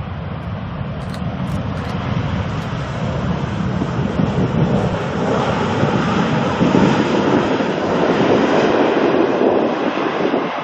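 Jet airliner passing low overhead on its landing approach, the engine noise building over several seconds to a peak and then falling away near the end.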